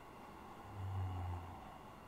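A slow, soft exhaled breath that swells and fades, with a short low hum near the middle.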